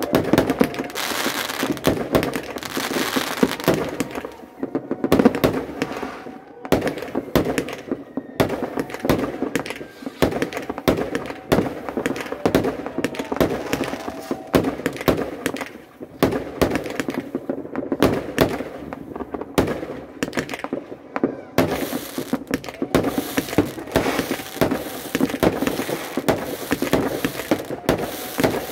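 Aerial fireworks going off in a rapid, near-continuous string of launches and crackling star bursts, with a few short lulls.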